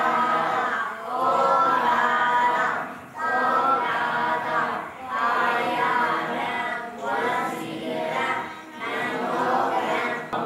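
Many voices chanting a Buddhist recitation together in unison, in short phrases with brief pauses between them.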